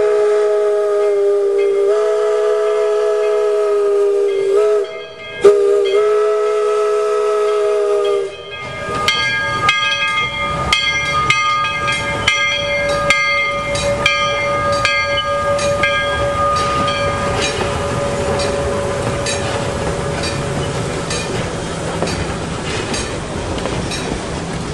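Steam locomotive whistle sounding two long blasts, the first about five seconds and the second about three, followed by a crossing-signal bell ringing steadily while the train rolls through the crossing.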